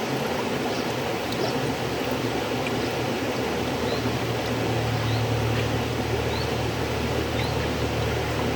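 River water flowing steadily, with a low rumble in the water sound that swells for a few seconds around the middle.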